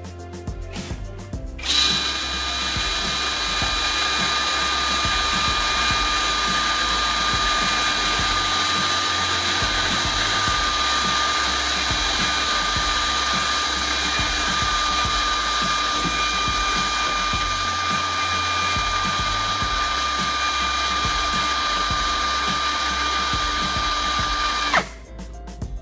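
Small power tool motor running at a steady speed with a high whine over a hiss, starting about two seconds in and cutting off abruptly near the end, with background music underneath.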